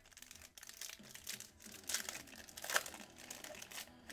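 Foil wrapper of a Panini Select basketball card pack crinkling as it is torn open and the cards are pulled out: a run of irregular rustling crackles, loudest about two to three seconds in.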